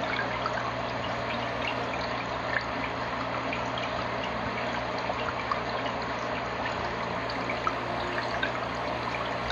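Aquarium water running and trickling steadily, as from a filter outflow falling into the tank, with many small bubble pops and a steady low hum.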